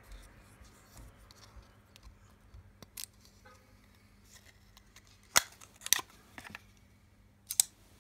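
Benchmade Axis Stryker 908 folding knife being handled: faint clicks and scrapes, then three sharp snaps, about five and a half, six and seven and a half seconds in, as the blue plastic blade guard comes off and the blade is opened and clicks into its Axis lock.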